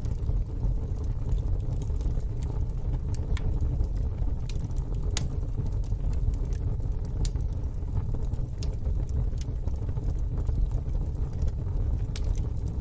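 Fire pit fire burning: a steady low rumble of the flames with scattered sharp crackles and pops, about a dozen, at uneven intervals.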